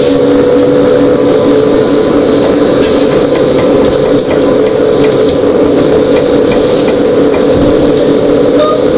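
New Flyer E40LFR trolleybus's electric traction drive whining steadily at cruising speed, with road and tyre noise under it, heard from inside the bus.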